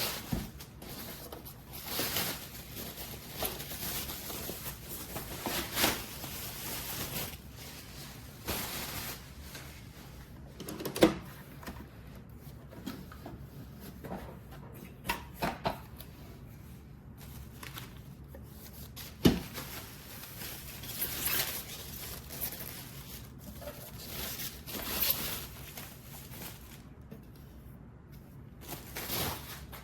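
Irregular clicks, light knocks and rustling of objects being handled, with two sharper knocks about 11 and 19 seconds in.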